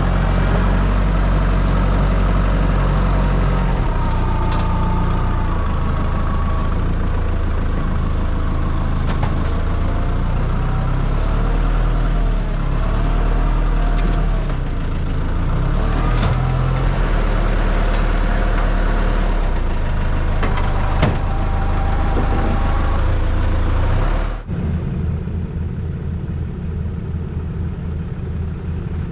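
A heavy vehicle's engine running steadily under way, with whines around the middle that rise and fall. About 24 seconds in, the sound changes abruptly to a lower, pulsing drone.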